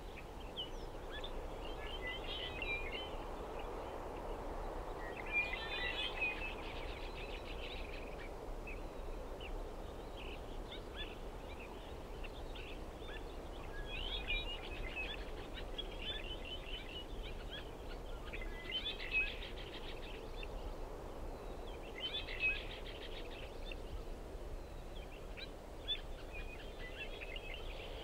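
Birds chirping and trilling on and off, with denser bursts of song at several points, over a faint steady background hiss.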